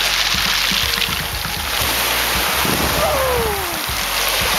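Small sea waves breaking and washing over a shingle beach, a steady hiss of surf, with wind buffeting the microphone. A short falling cry comes about three seconds in.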